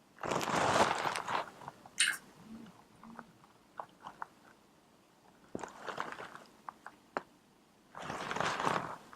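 Clip-on microphone rubbing against the fabric of a dress: three bursts of rustling, each about a second long, with faint small clicks in between.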